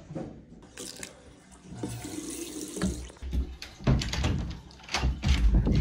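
Water running from a tap into a sink, with scattered clicks and heavy low bumps of handling, the loudest near the end.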